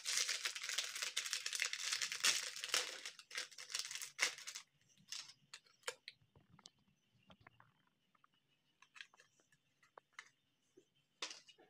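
A foil-lined plastic candy wrapper being torn open and crinkled by hand for about the first four and a half seconds. After that come quieter, scattered crinkles and clicks from a thin clear plastic tray being handled.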